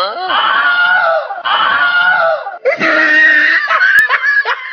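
A man screaming in fright: long shrill cries, then short rapid cries about three a second near the end.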